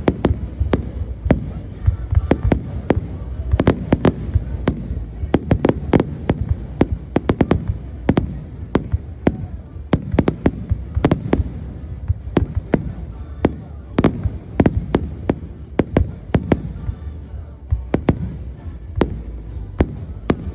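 Fireworks display: a rapid, irregular string of sharp bangs and pops, often several a second and sometimes overlapping, over a continuous low rumble.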